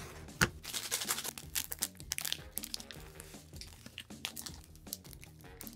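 Plastic instant-noodle sauce packet crinkling and being torn open, with a few sharp clicks of utensils against the cups, over quiet background music.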